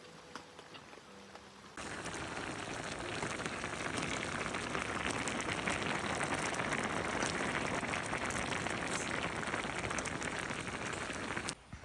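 Heavy rain pattering densely on a surface, starting suddenly a couple of seconds in, swelling a little, then cutting off abruptly near the end.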